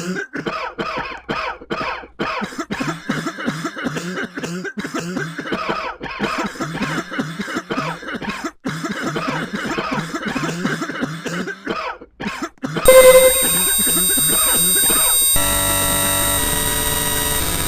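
A person coughing repeatedly in rapid fits. About thirteen seconds in, a sudden much louder, steady, many-toned drone cuts in and takes over.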